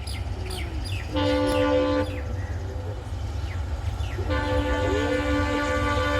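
EMD WDP-4B diesel locomotive's horn sounding two blasts, over a steady low rumble: a short one of about a second, then a longer one from about four seconds in.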